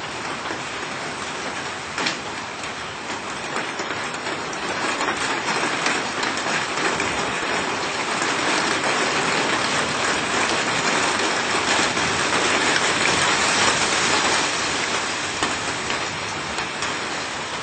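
Heavy rain falling in a dense, steady hiss that grows heavier about four seconds in, with one sharp tick about two seconds in.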